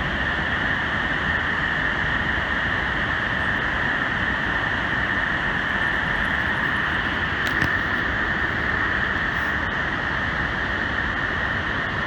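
Great Falls of the Passaic River: a steady, loud roar of falling water.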